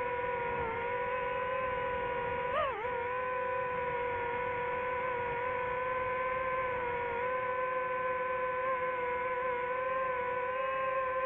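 DJI FPV drone's motors and propellers whining steadily in a hover, a sustained pitched hum. There is a brief wobble in pitch about two and a half seconds in.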